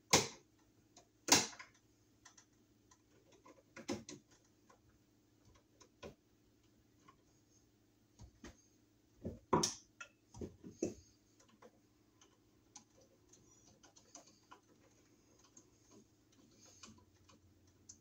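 Scattered clicks and taps of a screwdriver and wires against a wall receptacle as its terminal screws are worked by hand. The loudest come near the start and again about halfway, over a faint steady hum.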